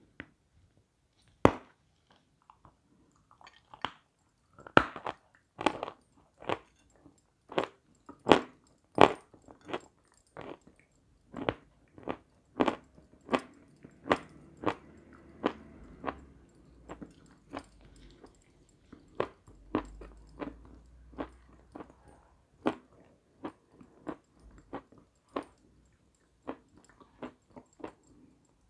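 Close-up crunching bites and chewing of a crisp white meringue-like dessert: sharp crunches every second or so, thinning out in the later part.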